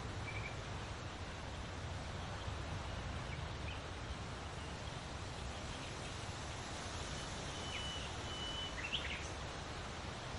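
Forest ambience: a steady breeze with a few short, high bird calls, one near the start and a small cluster of brief whistled notes and sharp chirps about eight to nine seconds in.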